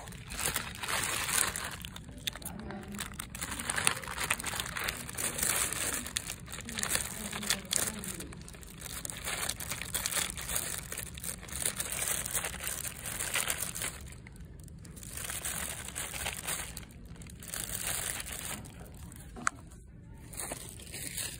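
Crinkling and rustling of something being handled, in irregular bursts with a few short pauses in the second half.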